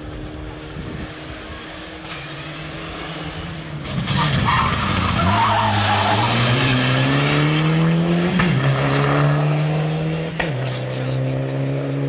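Mitsubishi Lancer Evolution rally car's turbocharged four-cylinder engine coming up and passing at full throttle: it turns loud about four seconds in, with tyres squealing through the corner, then the revs climb steadily with upshifts at about eight and a half and ten and a half seconds in.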